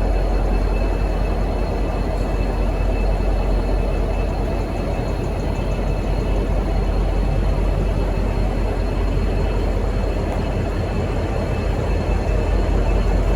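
V/Line N class diesel-electric locomotive running: a steady, deep engine rumble with a faint steady high whine above it.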